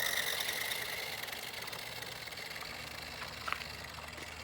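Electric motor of a toy remote-control side-by-side whining at full speed after accelerating, holding a steady pitch and slowly fading.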